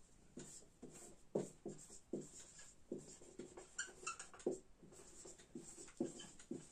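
Whiteboard marker squeaking and scratching across a whiteboard as words are written: a faint run of short strokes, about two a second, with a brief cluster of higher squeaks about four seconds in.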